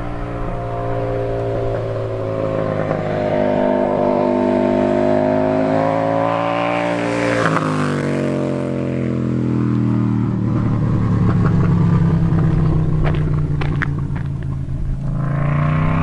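KTM 790 Duke's parallel-twin engine through an Austin Racing RS22 exhaust, accelerating past. Its pitch climbs as it approaches, drops sharply as it goes by about seven and a half seconds in, then holds at a lower note as it pulls away.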